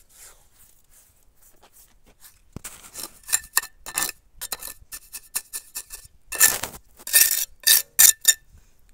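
Steel mason's trowel scraping and clinking against concrete blocks as cement mortar is spread into the joints. After a quiet start it comes as a quick run of short strokes, loudest near the end.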